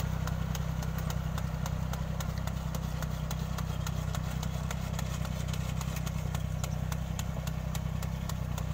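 Kubota rice transplanter's small engine running steadily at work in a flooded paddy, with frequent sharp clicks over the low engine drone.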